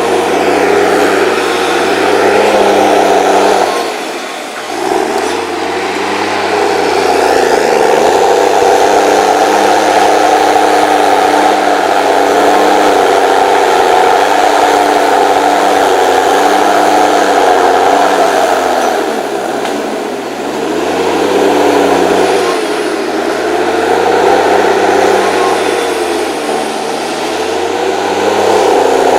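The HSM 904 S's 6.7-litre, 238 hp diesel engine running hard under load. Its pitch dips sharply about four seconds in and again about two-thirds of the way through, with smaller dips after, recovering each time.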